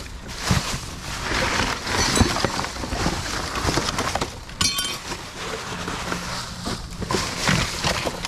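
Rummaging through loose scrap metal garage-door hardware such as hinges: continuous scraping and rattling with sharp knocks, and one short ringing metallic clink a little past the middle.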